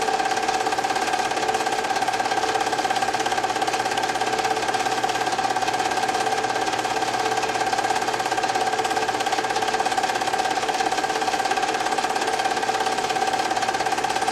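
Home-movie film projector running: a steady whirr with a fast, even clatter from its film-advance mechanism.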